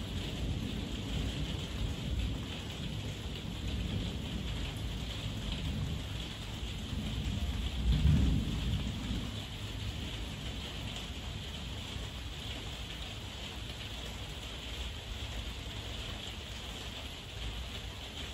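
Heavy rain falling steadily, with low thunder rumbling underneath; the thunder swells to its loudest about eight seconds in, then eases off.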